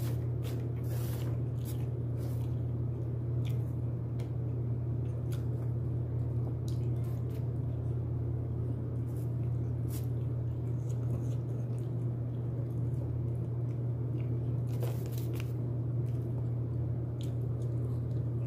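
Close-up eating of broasted fried chicken: biting, chewing and small crunches of the crust, with wet squishy mouth sounds, over a steady low hum.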